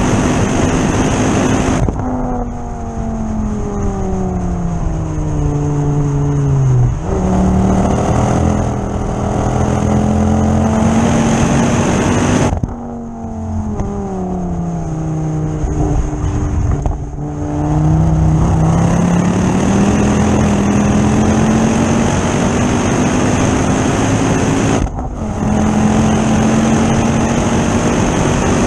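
Ford Focus ST 225's turbocharged five-cylinder engine heard from inside the cabin while it is driven hard on track. The engine note falls away under braking, steps up at downshifts and climbs again under acceleration. Brief dips in the sound mark gear changes, several times over.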